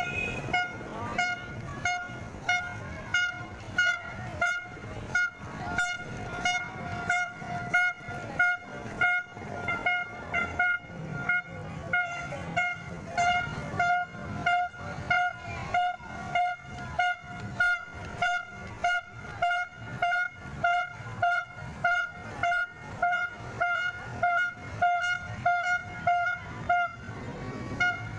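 A horn-like toot on one steady pitch, repeated very evenly about twice a second.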